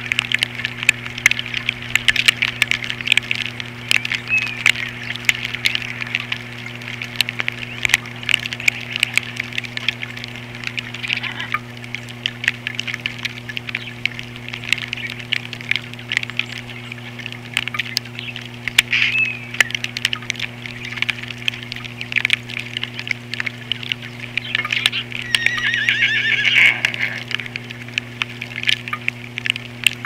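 Birds at a feeder keep up steady chirping and chattering over a constant low electrical hum. About 25 seconds in, a louder wavering call rises above them for a second or two.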